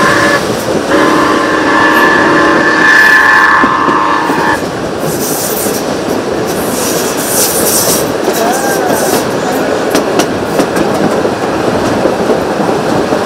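Rx-class steam locomotive whistle sounding as a chord: a blast ends just after the start, then a second blast lasts about three and a half seconds. After it comes the steady rumble and clickety-clack of the moving train's carriage wheels on the track.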